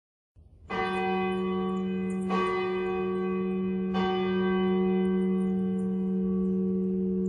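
A bell struck three times, about a second and a half apart, each stroke ringing on and overlapping the last in a long steady hum.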